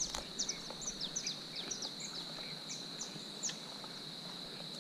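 Natural ambience: a steady high insect drone, with quick high bird chirps that fall in pitch, repeated about three times a second until about three and a half seconds in.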